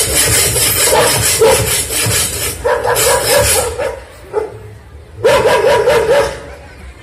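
Recorded dog barking and yelping played loudly over a hall's loudspeakers as a sound effect, in several bursts of quick repeated yelps with short pauses between.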